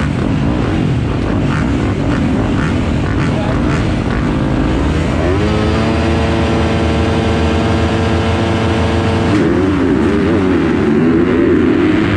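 Several motocross dirt bikes revving at the start gate, their pitches wavering over one another. About five seconds in, one engine climbs and is held at a steady high rev for about four seconds, then the revs waver again: riders holding the throttle ready for the gate to drop.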